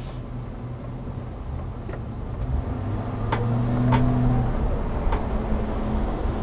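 Car engine accelerating from a stop, its hum rising and loudest about four seconds in, with a few sharp clicks over it.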